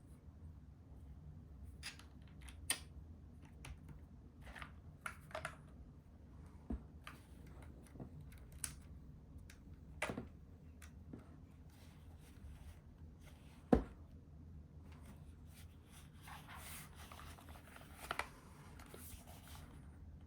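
Hands handling a wireless mechanical keyboard and its parts: scattered clicks and taps, one sharp knock about 14 s in, then a few seconds of rustling near the end, over a steady low hum.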